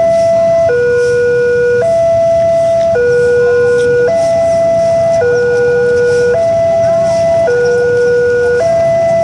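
Railway level-crossing warning alarm sounding a continuous two-tone pattern, a higher and a lower tone taking turns about every second, over a low rumble.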